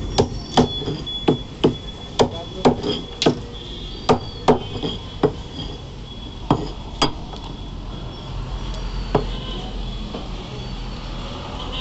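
Butcher's knife chopping chicken pieces on a thick wooden chopping block: sharp chops about two a second, thinning out and stopping about seven seconds in, with one last chop a couple of seconds later.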